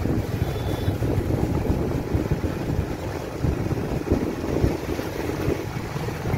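Wind rumbling on the microphone over the steady running of a vehicle driving along a road.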